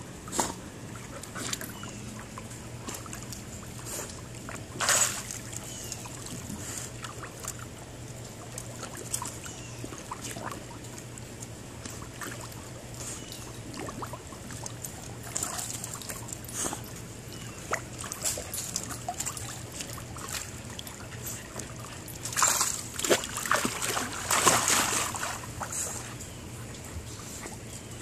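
Dogs swimming and paddling in a swimming pool, with water sloshing and splashing. There is a big splash about five seconds in and a run of louder splashes later on, over a steady low hum.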